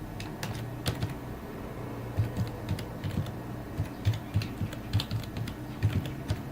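Computer keyboard typing: irregular, quick keystrokes as a terminal command is typed, over a low steady hum.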